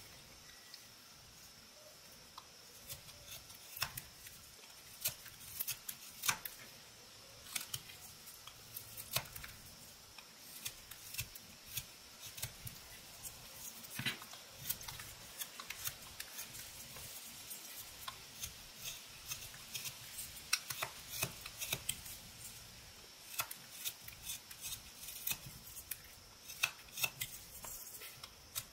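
Whittling knife slicing thin chips from an eastern white pine carving: short, crisp cuts at irregular intervals, sometimes two or three in quick succession, over a faint steady hiss.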